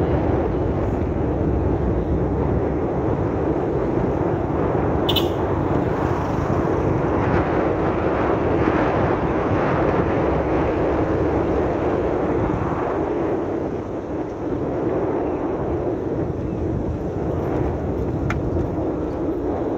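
Steady engine and tyre noise of a vehicle driving along a road, with a brief sharp click about five seconds in.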